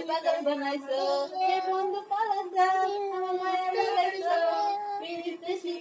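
Women and a young child singing a song together, voices only.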